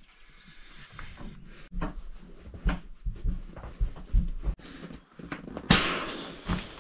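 Nylon rustling and soft knocks as a sleeping bag is rolled up and an inflatable sleeping pad is handled, with a loud rush of air near the end as the pad's valve is opened and it starts to deflate.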